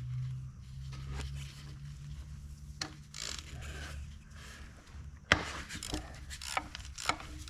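Hand tools working on a diesel engine block: scraping and rubbing of metal, then a few sharp metal knocks, the loudest about five seconds in, over a low hum that fades away in the first few seconds.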